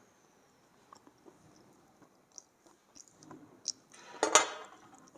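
A bite into a hard piece of slate: one loud crackling crunch about four seconds in, with faint small chewing clicks before it.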